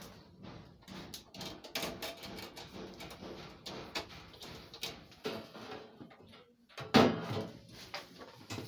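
Handling noise of a desktop computer tower and its cables: scattered clicks and knocks as plugs go in and the case is moved, with one loud thump about seven seconds in.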